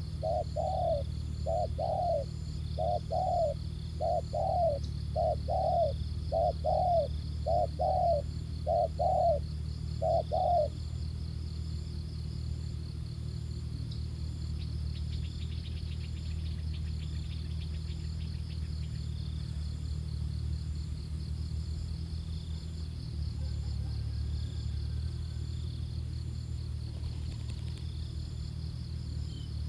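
Spotted dove cooing: a quick run of short coos, mostly in pairs, for about ten seconds, then it falls silent. A steady low rumble runs underneath.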